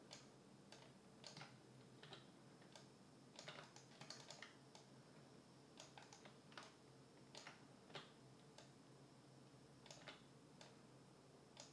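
Faint, irregular clicks of a computer mouse and keyboard, about one or two a second, over a faint steady hum.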